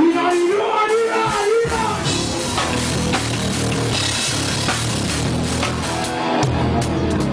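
Live rock band playing loudly. A melodic line carries the first couple of seconds, then the full band comes in about two seconds in with heavy bass and drum kit.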